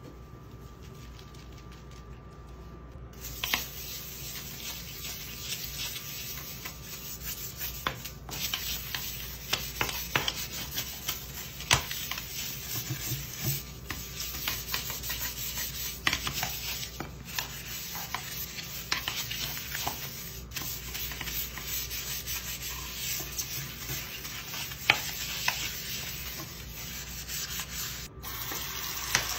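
A stiff-bristled scrub brush scrubbing a wet bathroom sink basin sprinkled with powder cleanser: continuous scratchy rubbing with many small irregular clicks and scrapes. It starts about three seconds in.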